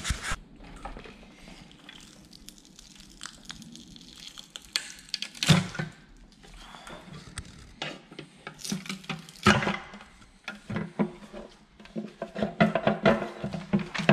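Scattered clicks, clinks and knocks of hand tools and metal parts being handled, with a few louder knocks about five and a half seconds in, near the middle, and in a quick run near the end, as a steel oil pan is worked loose from a Subaru boxer engine.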